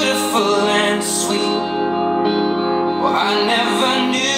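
A song with singing and guitar playing from a Bose SoundLink Revolve+ portable Bluetooth speaker.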